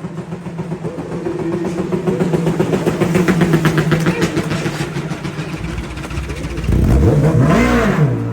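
Racing motorcycle engine running at a steady pitch. Near the end a deeper rumble comes in and the pitch quickly rises and falls.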